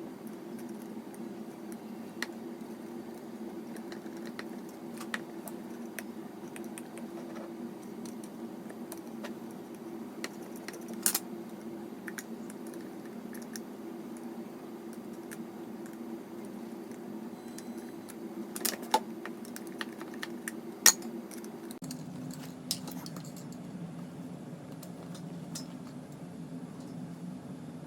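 Scattered small clicks and taps of metal tweezers picking at a hair dryer's plastic parts to clear dust, a few sharper ones standing out. A steady low hum runs underneath and shifts lower about three quarters of the way through.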